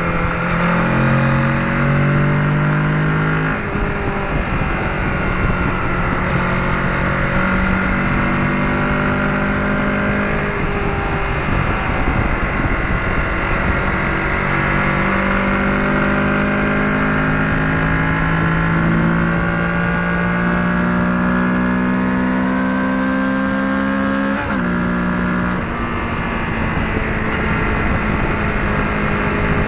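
Kawasaki Ninja 650's parallel-twin engine pulling on the highway. Its pitch climbs steadily through the revs and drops sharply at upshifts, about three seconds in, around ten seconds and again near twenty-four seconds, over a steady rush of road noise.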